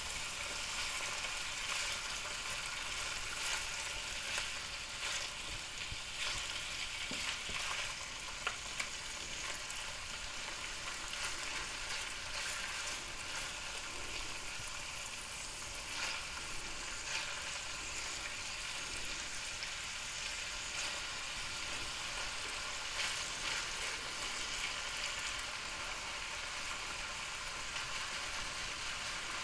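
Smoked sausage pieces sizzling steadily in oil in a hot non-stick skillet, with many small crackles and pops, and a few light scrapes as they are stirred around the pan.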